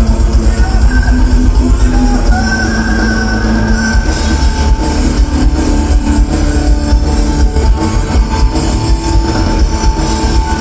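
Live rock band playing loudly, with guitar over heavy bass.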